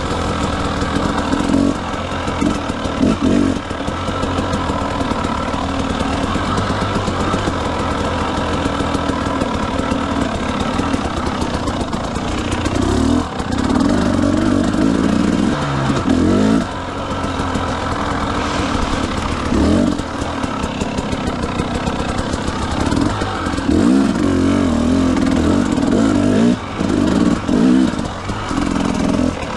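Motorcycle engine running under way, revving up and down again and again as the throttle is opened and closed.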